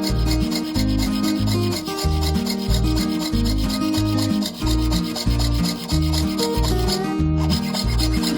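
Background music with a steady low beat and changing chords, over a continuous scraping, rubbing sound of hand work on the metal.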